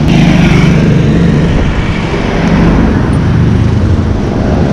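Road traffic: a motor vehicle's engine running close by, a loud steady hum with road noise.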